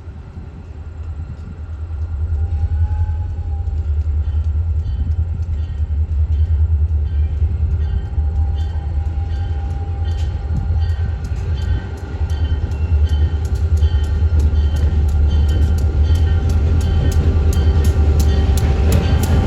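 A train passing close by: a heavy low rumble that swells about two seconds in, with wheels clicking over rail joints, the clicks coming faster in the second half.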